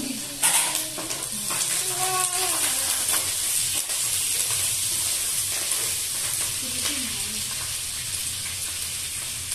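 Leafy greens sizzling in oil in a metal pan, stirred with a metal spoon that scrapes and clicks against the pan. The sizzle is a steady hiss.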